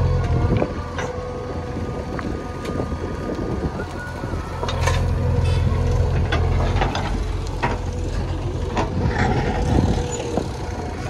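JCB backhoe loader at work: its diesel engine runs steadily and swells under load near the start and again midway, with a steady whine and scattered metallic clanks and knocks.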